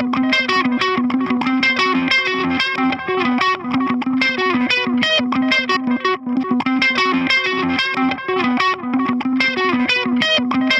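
Electric guitar played through the Brainworx Diezel VH4 amp-sim plugin on its clean Channel 1, picking a steady run of quick arpeggiated notes.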